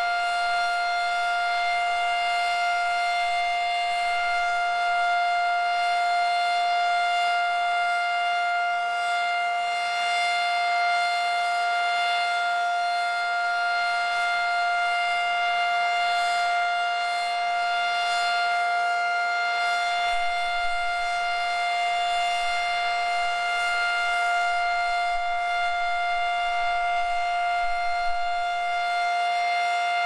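Federal Signal Model 7 outdoor warning siren sounding the Alert signal: one loud, steady tone that holds its pitch.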